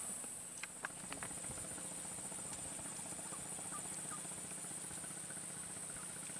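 Swamp ambience: a steady high-pitched insect drone, with a few faint clicks in the first second or so.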